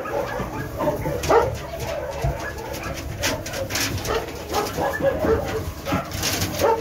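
Several young dogs whining and yipping in short, overlapping calls, with rustling and scuffling in hay bedding.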